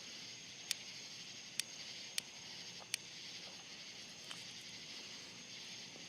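A lighter being flicked, five sharp clicks over about three seconds and a faint one later, over a steady chorus of night insects such as crickets.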